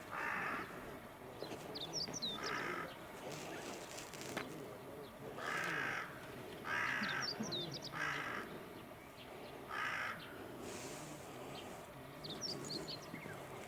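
A crow cawing about six times at irregular intervals, with short, high twittering calls from a small bird three times in between.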